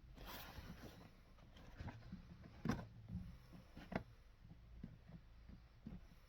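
Quiet shoe-repair handling: a brief scraping rustle near the start, then scattered knocks and light taps, the two sharpest about three and four seconds in.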